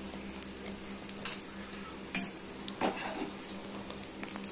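Oil sizzling steadily around a thick onion dosa on an iron tawa, with three sharp clicks of a metal spoon against the pan, about one, two and three seconds in, as idli podi is shaken over it.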